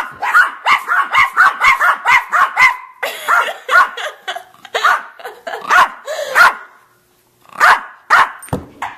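A dog barking in quick repeated barks, about three a second, with a short pause about seven seconds in before it barks again.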